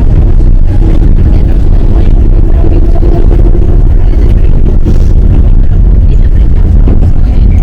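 Enoden electric train running: a loud, steady low rumble, with a faint hum from about two to four seconds in.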